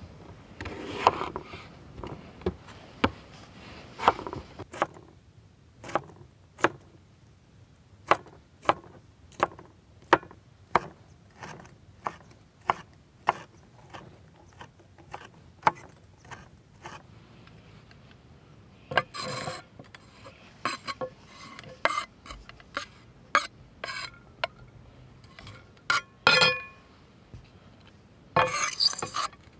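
Chef's knife dicing a tomato on a wooden cutting board: a steady run of sharp knocks of the blade on the board, about one and a half a second. There are a few longer scrapes of the blade across the board in the second half and near the end.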